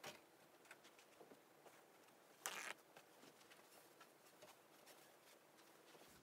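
One short squirt from a trigger spray bottle, a brief hiss about two and a half seconds in, against near silence with a few faint handling clicks.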